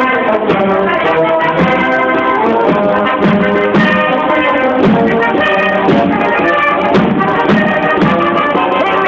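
Brass band playing, several instruments holding notes together in chords that change every second or so.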